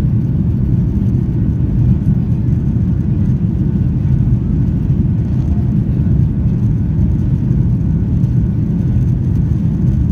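Steady low rumble of an airliner's engines and rushing air, heard from inside the passenger cabin as the plane climbs after takeoff.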